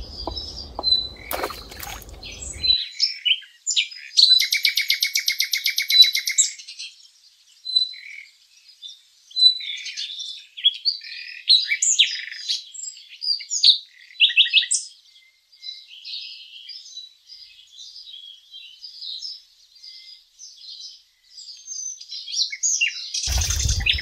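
Small birds chirping and twittering in many short calls, with a dense, rapid trill from about four to seven seconds in. A brief rush of noise comes near the end.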